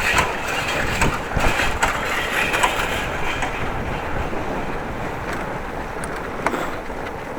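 A bicycle rattling and clattering as it is ridden over rough pavement, with scattered knocks from the frame and fittings over a steady rush of wind on the microphone.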